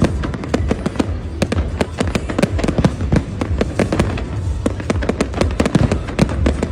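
Fireworks going off in rapid, continuous volleys: dense crackling and popping over a steady low rumble of bangs.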